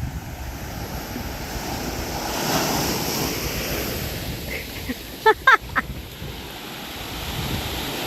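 Waves washing on a beach, a steady rush that swells about two and a half seconds in. A few short high calls cut through it about five seconds in.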